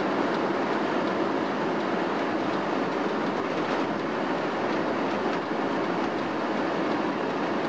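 Steady road and engine noise of a moving vehicle heard from inside the cabin, with a few faint clicks and rattles.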